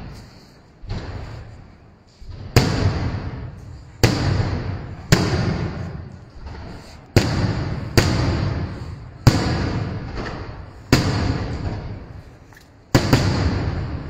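Aerial fireworks shells bursting overhead, about ten sharp bangs at uneven gaps of one to two seconds. Each bang echoes and fades away over a second or so.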